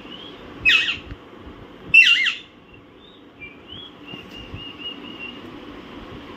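Alexandrine parakeets calling: two loud, harsh squawks, one just under a second in and the next about two seconds in, followed by softer high chirps.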